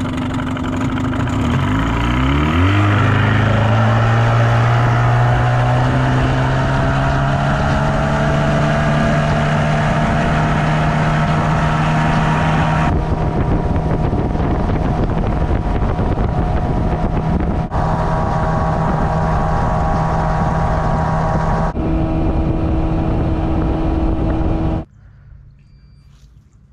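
Evinrude two-stroke outboard motor driving a jon boat: it speeds up, climbing in pitch about two to three seconds in, then runs steadily at cruising speed. The engine cuts off about 25 seconds in.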